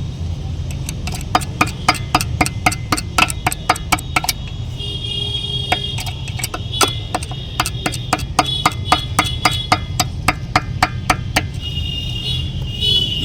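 Rapid sharp taps of a tool on the removed DEF (urea) dosing valve, about three or four a second with a short let-up about four seconds in, knocking out the thick crust of dried urea that has choked it, over a steady low hum.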